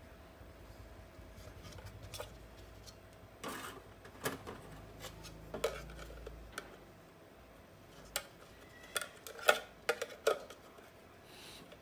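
Scattered light clicks and taps of small hard parts being handled: round LED boards being set into a clear plastic lamp cover. A quick run of sharper clicks comes about nine to ten and a half seconds in, over a faint low rumble in the first half.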